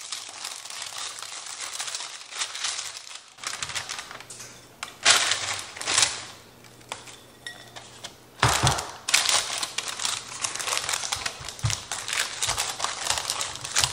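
Parchment paper crinkling and rustling as it is pressed into a glass baking dish. Then a dry, crumbly crust mixture is tipped in from a bowl and patted down by hand, with a single knock about eight and a half seconds in.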